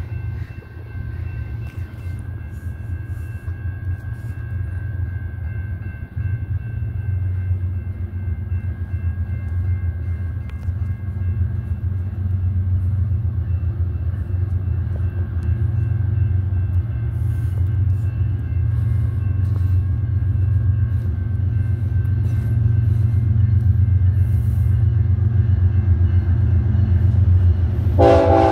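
BNSF GE ES44AC diesel locomotives approaching, a deep engine rumble that grows steadily louder as they near. The locomotive horn starts to sound just before the end.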